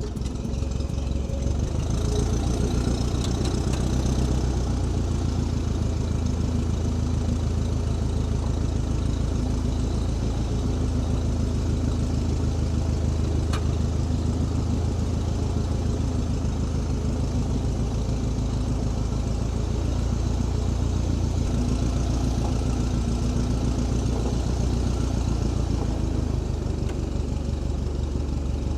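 Engine of a lifting machine running steadily, speeding up about two seconds in and changing speed a few times, with a light click about halfway through.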